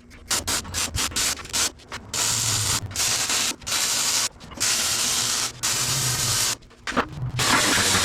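A power metalworking tool working steel plate in repeated short bursts, each stopping and starting abruptly.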